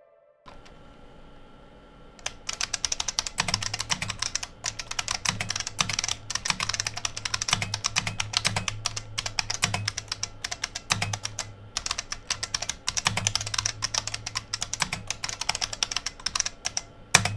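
Fast typing on the IBM 5155's Model F capacitive buckling-spring keyboard: a dense run of sharp key clicks with a short pause about two-thirds of the way through, and one louder keystroke near the end. A steady hum sits underneath.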